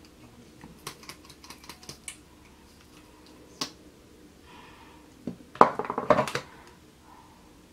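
Light, scattered clicks and taps of a plastic mascara tube and wand being handled during mascara application, with a louder flurry of clicks about five and a half seconds in.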